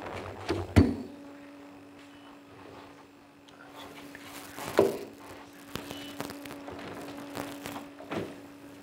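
Table microphones being handled and repositioned, picked up as a series of knocks and clicks, the loudest about a second in and others near the middle and end, over a steady low hum.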